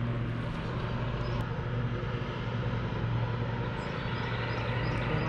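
Steady low drone of a distant engine, with a few faint high chirps near the end.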